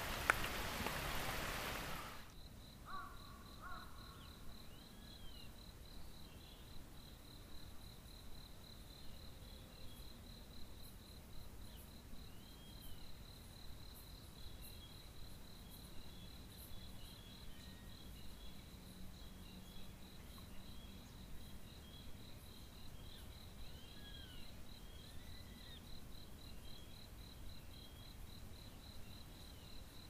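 Heavy rain for about the first two seconds, then a cut to a cricket's steady, pulsing high trill, with short faint chirps now and then.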